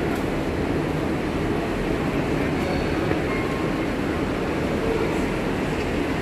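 A passenger train standing at a station platform with its engine running: a steady, even rumble mixed with the general hubbub of a covered station.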